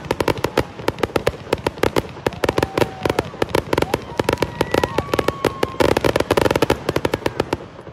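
Fireworks display going off: a dense run of rapid sharp bangs and crackles, thickest about six seconds in, ending just before the end.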